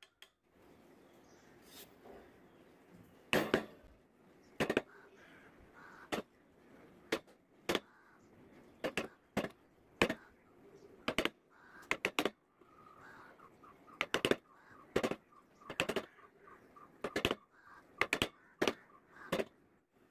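Wood-carving chisel being struck to drive it into the wood: sharp knocks about once a second, some in quick pairs, the first strong ones starting about three seconds in.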